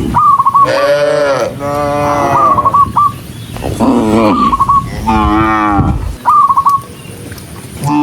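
Cattle mooing, about four long calls one after another, each lasting about a second and dropping in pitch at the end. Short high-pitched notes repeat between the moos.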